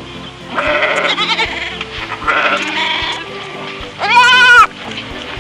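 Several wavering, bleat-like animal calls over background music. The loudest and clearest call comes about four seconds in.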